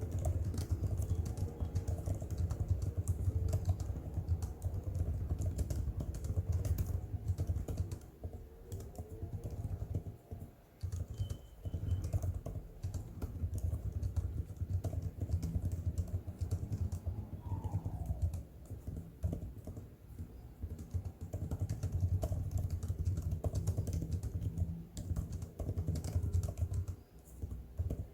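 Fast, continuous typing on an M1 MacBook Air's scissor-switch keyboard, with rapid key clicks and a couple of brief pauses in the middle.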